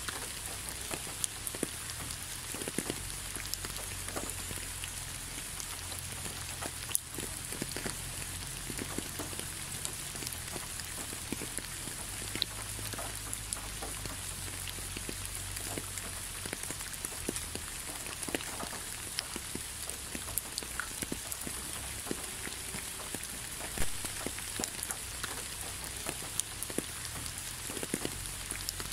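Steady rain falling: an even hiss with many individual drops ticking close by, and one sharper tick a few seconds before the end.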